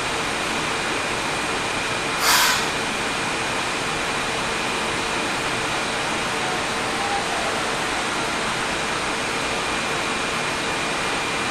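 Steady running noise of a Kyoto Municipal Subway train standing at the platform, with a faint steady hum and a thin high whine. About two seconds in, a short sharp hiss cuts through.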